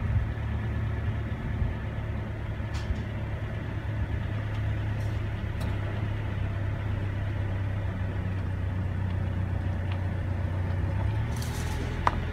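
A motor vehicle engine idling steadily, a low even hum with a few faint clicks over it.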